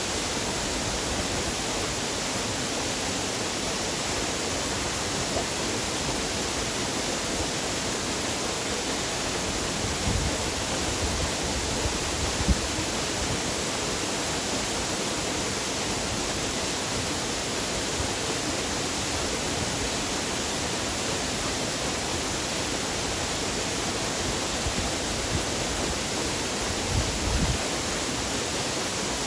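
Waterfall: a steady, even rush of falling water, with a few brief low bumps, the sharpest about twelve seconds in.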